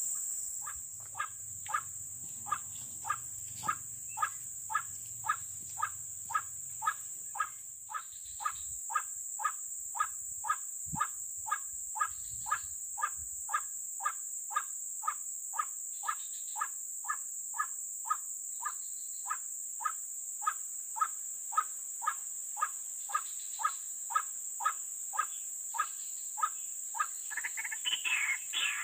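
White-breasted waterhen call: a short note repeated monotonously at about two a second, the call used to lure the birds to the trap. A steady high insect buzz runs underneath.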